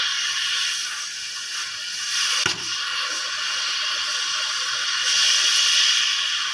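Electric arc welding on a steel tank's manhole: a steady hiss, with a sharp click about two and a half seconds in.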